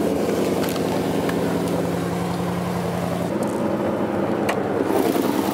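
Turbocharged 5.0 V8 engine of a Ford F-150 pickup idling steadily just after start-up.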